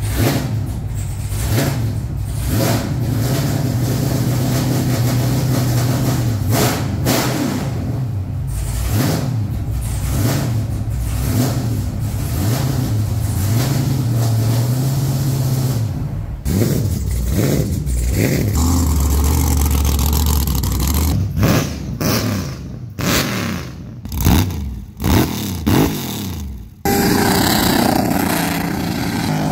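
Truck engine heard from inside the cab, idling with a steady low drone, then revved repeatedly from about halfway through in sharp rising and falling blips. Near the end it switches abruptly to a truck doing a burnout, with the engine at high revs and a dense rush of tyre noise.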